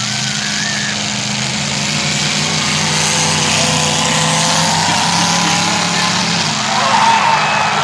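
Demolition derby car engines running and revving, with shouting voices mixed in.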